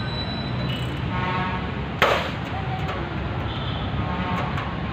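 A single sharp metallic clank about two seconds in, from the steel slotted-angle shelving being fitted together, over a steady outdoor background rumble.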